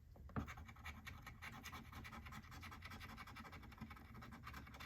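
Scratch-off lottery ticket being scratched: faint, quick repeated scraping strokes across the coating.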